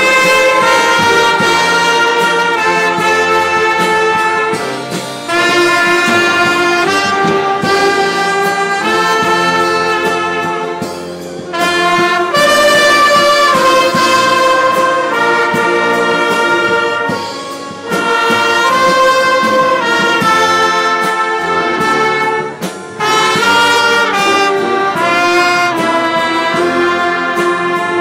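Live symphony orchestra playing in sustained chords, phrase by phrase, with short breaks about every six seconds.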